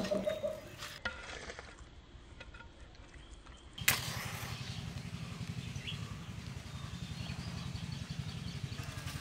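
Soft wet rubbing of hands working turmeric paste into raw hilsa fish pieces, then about four seconds in a safety match struck sharply on its matchbox and flaring. A steady low background rumble follows the strike.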